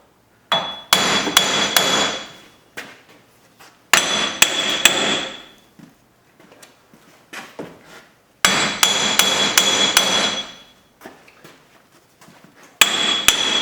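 Hammer striking a front wheel hub assembly to break it loose from the steering knuckle: four spells of rapid metal-on-metal blows, each with a high metallic ring.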